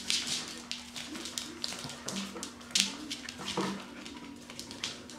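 Standard poodle puppies playing tug-of-war, giving a few short low whines and yips amid scuffling and clicking sounds of rough play.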